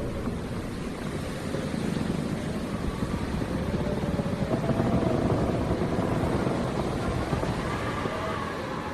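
Strong wind howling: a low rushing roar with a faint whistling tone that wavers up and down, swelling in a gust about five seconds in.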